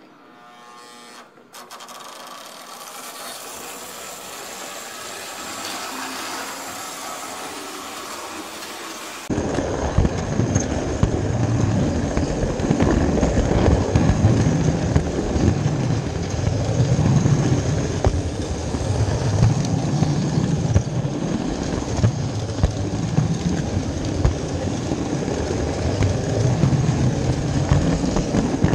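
A model train running on its track, growing steadily louder at first. After a sudden cut about nine seconds in, it is heard from a camera riding on a car at the front of the train: a much louder rumble and clatter of the wheels on the rails, with many sharp clicks.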